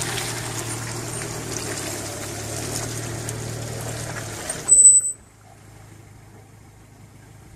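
Suzuki Vitara engine running under a steady low hum as the tyres churn and splash through a muddy, water-filled rut. Just under five seconds in there is a short loud burst, after which the sound drops suddenly to a quieter engine rumble.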